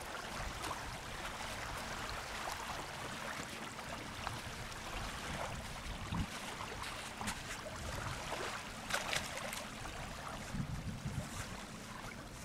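Small waves lapping on a gravel shore in a steady wash of water and wind noise, with a few short crunches or knocks about three quarters of the way through.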